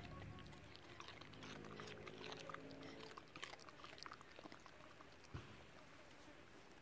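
A beagle chewing and biting a piece of cucumber: faint, irregular clicks of the bites, thickest through the first four seconds or so.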